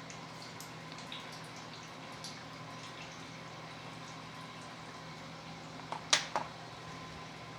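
Steady hum with scattered faint ticks, and a short clatter of sharp knocks about six seconds in.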